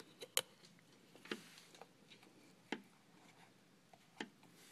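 A few faint, scattered clicks and light knocks of small hard objects being handled, the sharpest one near the start.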